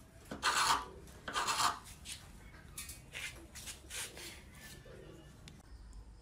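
Wood chisel pushed by hand, paring wood along a groove: two long scraping strokes in the first two seconds, then fainter scrapes and taps.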